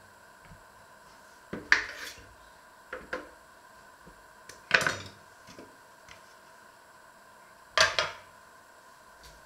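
Several sharp clatters of kitchenware, a few seconds apart, as butter is taken from a butter dish and put into a metal baking tray; the loudest comes near the end, when the butter dish's lid is set back on.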